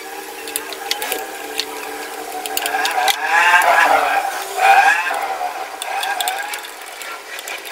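Hand screwdriver working the screws out of an electric fan motor's metal cover: sharp metal clicks and scrapes, with a louder wavering squeal of the turning screw about three seconds in that lasts a couple of seconds.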